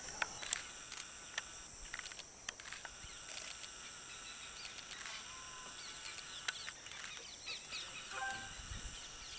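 Birds chirping and calling over a steady high-pitched hiss, with scattered short clicks, and a brief louder call about eight seconds in.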